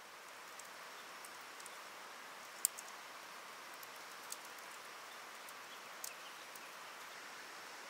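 Faint, steady rush of running water, with a few sharp ticks scattered through it, the strongest about two and a half seconds in.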